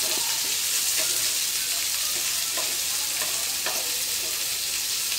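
Chopped onion, capsicum and sweet corn sizzling in oil in a nonstick frying pan, a steady hiss, with light scrapes and taps of a wooden spatula stirring them.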